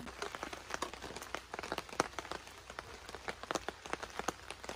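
Rain pattering on a camping tarp overhead: many irregular drop ticks over a faint steady hiss of rain.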